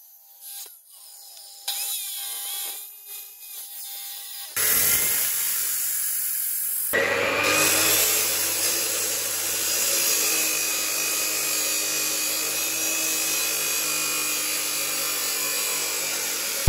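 Abrasive cut-off saw (chop saw) grinding through square steel tubing. It is quieter for the first few seconds, then a loud, steady grinding hiss starts about four and a half seconds in and carries on.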